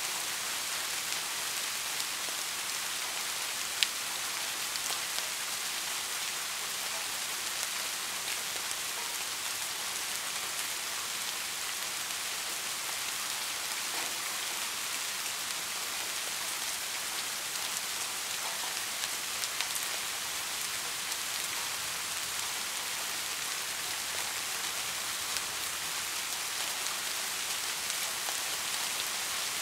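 Steady rain: an even hiss with scattered faint drop ticks. One sharp tick stands out about four seconds in.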